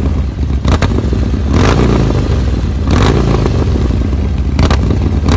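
Harley-Davidson Roadster 1200's air-cooled 1202cc Evo V-twin running through a Vance & Hines slip-on muffler. It idles and is blipped up in three quick revs.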